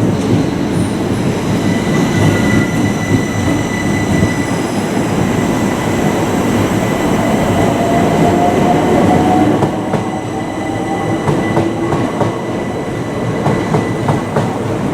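Electric passenger train running along the platform, with a steady rumble of wheels on rails. A faint whine rises in pitch partway through, and the noise eases a little after about ten seconds.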